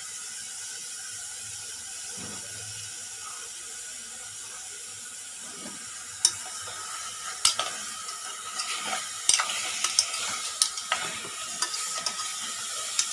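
Veal pieces sizzling steadily as they sear in a hot steel pot over a high gas flame. From about six seconds in come irregular sharp clinks and scrapes of the spoon and pot as the meat is stirred.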